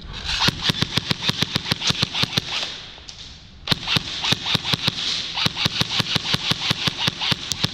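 Airsoft gun firing on full auto in two long bursts, a rapid even rattle of about ten shots a second, with a pause of about a second between the bursts.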